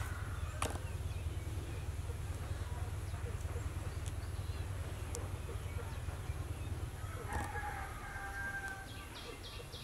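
A rooster crows once, faintly, lasting about a second and a half, late in the stretch, over a steady low rumble. A fast, high chirping trill starts just before the end.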